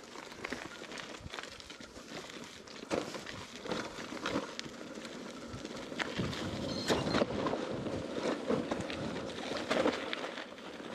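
Mountain bike rolling over a stony gravel and dirt trail: tyres crunching on loose stones, with scattered sharp knocks and rattles from the bike over bumps.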